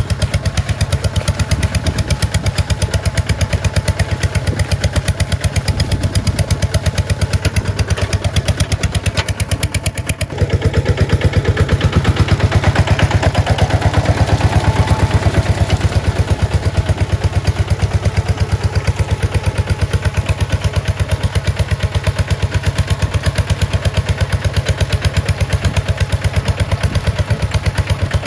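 Kubota RT140 single-cylinder diesel engine running steadily with an even, rapid chug. About ten seconds in it dips briefly, then runs louder for a few seconds before settling back.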